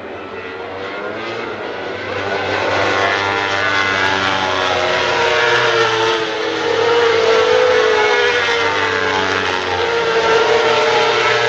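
World Superbike race motorcycles running at high revs as a group goes by. Several engine notes overlap, rising and falling, and the sound grows louder over the first few seconds as the bikes approach, then stays loud.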